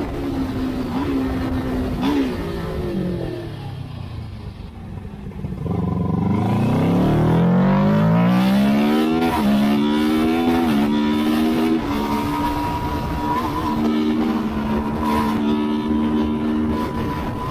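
Racing motorcycle engine heard from onboard at speed: the revs drop back briefly, then it accelerates hard with rising pitch, snapping through three upshifts in quick succession before holding steady at high revs.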